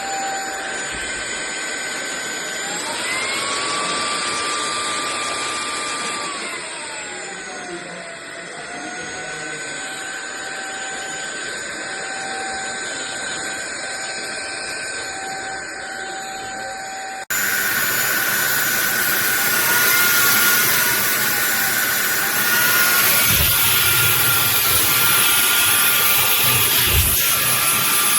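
SunSare X7A cordless stick vacuum running with a motor whine. The pitch steps up about three seconds in and glides back down a few seconds later, as the power level changes. Just past halfway the sound turns abruptly louder and more rushing, with a few low knocks near the end.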